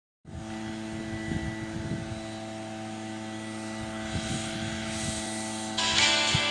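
Small petrol engine of a hand-carried power tool running at one steady speed, an even drone. Guitar music comes in near the end.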